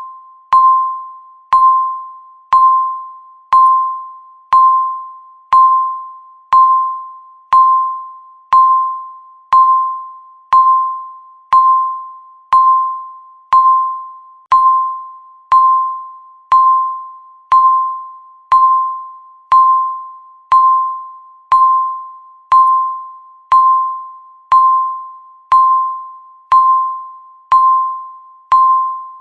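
Countdown timer beep: a single electronic chime tone struck once a second, each with a sharp start and a quick fading ring, repeating evenly throughout, one beep for each second left.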